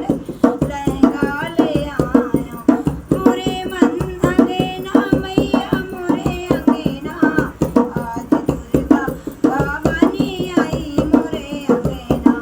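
A woman singing a Hindi devi geet, a devotional folk song to the goddess, with wavering held notes, over a steady beat on a hand drum.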